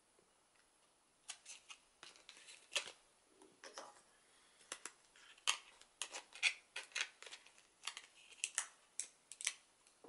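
Plastic blister packaging of a laptop memory module being handled: a run of irregular crinkles and crackles that starts about a second in.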